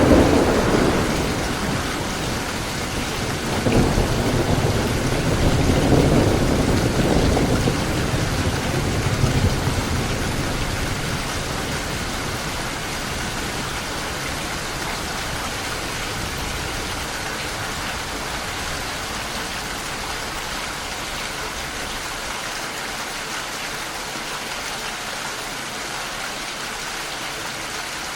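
Rain falling steadily with thunder: a thunderclap dying away at the start, then a long rolling rumble from about four seconds in that fades out by about ten seconds, leaving the rain alone.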